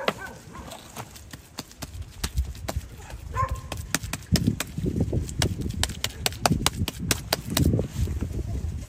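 Wet clay-and-straw mix being slapped and pressed down by hand onto the oven base: a quick run of wet slaps and squelches with dull thuds, thickest in the second half.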